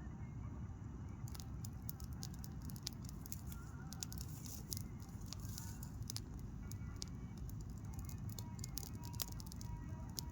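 Fire crackling with many sharp pops and snaps, over a steady low rumble.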